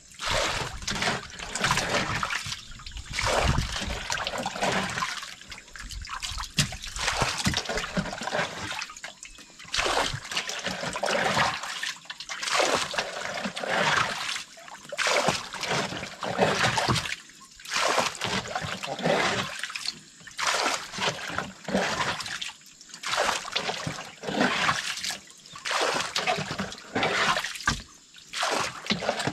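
Water being bailed by hand from a small boat's flooded, fish-filled hold with a plastic scoop: repeated scoop-and-pour splashes and trickling, one every second or two.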